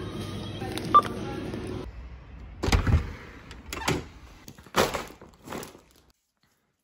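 A supermarket self-checkout scanner beeps once as an item is scanned, over a steady store hum. Then come a few separate knocks and thumps, the first the heaviest, as a front door is opened and shopping is handled.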